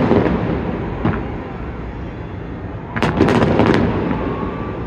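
Aerial fireworks shells bursting: a volley of bangs with a rumbling tail at the start, a single crack about a second in, and a rapid cluster of several bangs about three seconds in.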